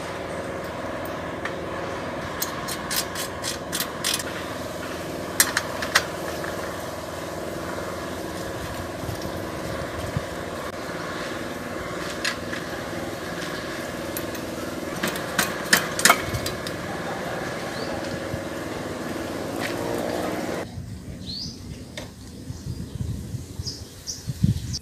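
Scattered metallic clicks and ticks as bicycle parts are handled and fitted at the rear wheel hub, over a steady mechanical hum like an engine running. The hum cuts off suddenly near the end, leaving only faint handling noises.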